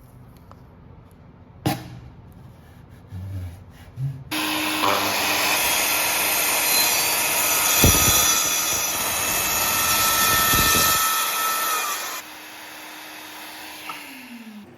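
A click and a few light knocks, then a circular saw starts and cuts through a wooden board for about eight seconds. The motor is then released and its whine winds down, falling in pitch near the end.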